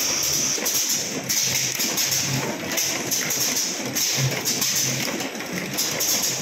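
Automatic bottle filling and capping line running: a steady mechanical hiss with frequent clicks and knocks as plastic oil bottles move along the conveyor and are capped.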